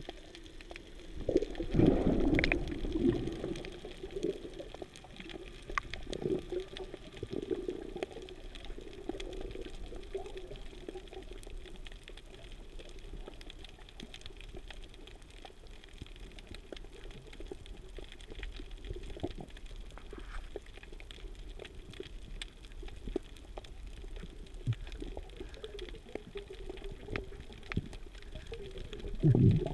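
Muffled underwater rushing and gurgling of water around a GoPro in its waterproof housing. There are louder surges about two seconds in and again right at the end.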